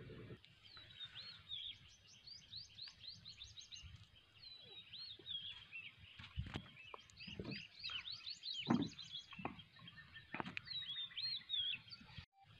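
Small birds chirping in quick series of short, high notes that swoop up and down, with a few low thuds in between, the loudest about nine seconds in.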